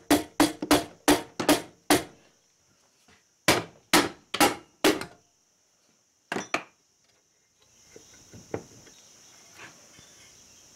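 Quick runs of sharp hammer taps on the aluminium sump cover of a Briggs & Stratton 18.5 hp Intek OHV engine, knocking it loose from the block once the bolts are out. A run of about eight taps is followed a couple of seconds later by about five more, then two more, and then a few faint knocks as the cover comes away.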